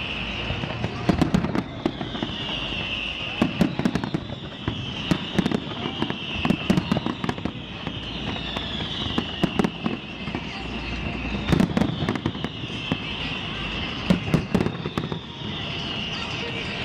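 Fireworks going off: a run of crackles and bangs, with a high whistle falling in pitch about every second and a half.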